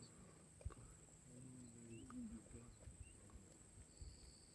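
Very faint low growl from lions feeding at a buffalo kill, held for about a second and dropping in pitch at the end, after a single soft knock.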